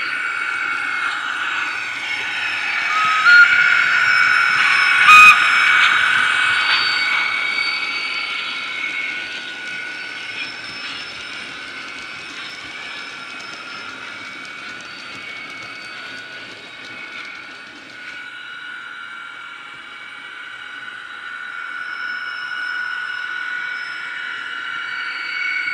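Model-railway DCC sound decoder (LokSound 5 with an ES1 electric locomotive sound file) playing through the model's small speaker as the train passes. Its electric-locomotive sound runs as a steady high whine, with two short whistle blasts about 3 and 5 seconds in, and grows quieter after about 8 seconds.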